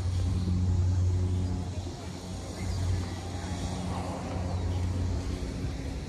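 Steady low engine hum from a nearby motor vehicle, loudest in the first two seconds and then a little weaker.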